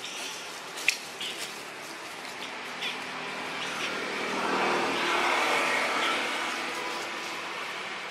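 A vehicle passing by, its engine and road noise swelling to a peak about halfway through and fading away. A sharp click comes about a second in.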